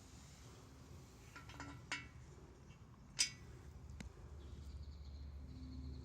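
Light clicks and clinks of metal transmission parts being handled, a small cluster about a second and a half in, then one sharp click about three seconds in and a softer one a second later, over a low steady hum.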